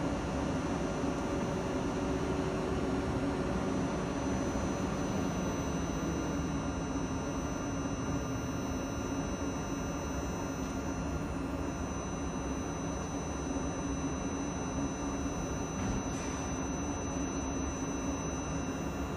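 A South Western Railway Desiro electric multiple unit standing at the platform, its onboard equipment humming steadily with a constant low drone and a faint high whine.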